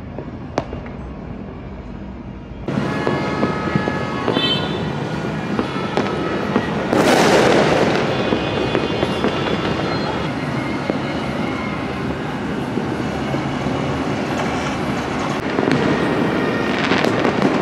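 New Year fireworks and firecrackers going off all over the city at once: a dense, continuous crackling and popping that starts abruptly about three seconds in, after a quieter stretch with a few single pops. There is a louder burst about seven seconds in.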